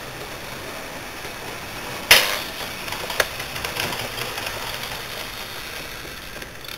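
Model railway: a sharp, loud clack about two seconds in and a smaller click a second later, then a run of light clicking as a model electric train rolls along the track into the station.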